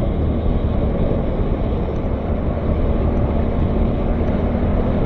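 Quad (ATV) engine running at a steady speed while riding along a dirt track.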